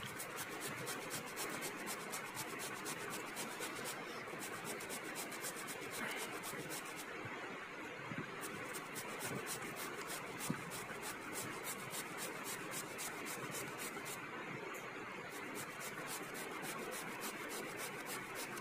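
Raw potato being grated on a stainless-steel box grater: a steady run of quick rasping strokes, one after another, with a single small tap about halfway through.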